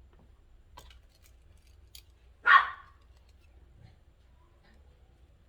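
A single dog bark about halfway through, over faint small clicks of hand work.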